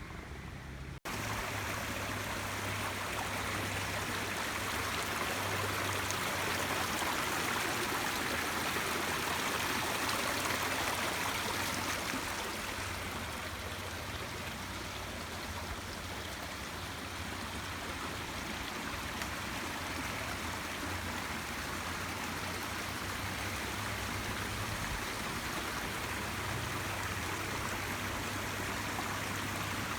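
Steady rush of flowing stream water, cutting in abruptly about a second in, with a low hum underneath.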